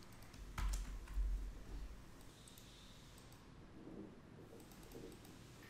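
A few faint computer mouse and keyboard clicks, the clearest about half a second in with a brief low bump on the desk under it.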